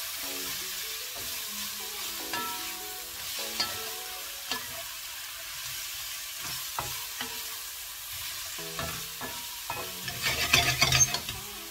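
Sliced vegetables sizzling in a stainless-steel wok as a wooden spatula stirs and tosses them, with small scrapes and clicks against the pan. A louder burst of scraping and clatter comes about ten seconds in.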